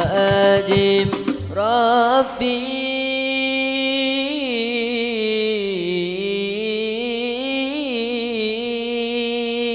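Rebana frame drums struck in rhythm under male singing of a qasidah; about two seconds in the drums stop and a single male voice holds one long drawn-out note that slowly bends up and down.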